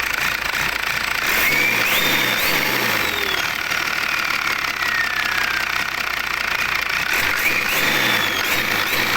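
Turbocharger whistling as the engine is revved. The whine climbs in steps, then slowly falls away, and climbs again near the end, over the steady running of the engine.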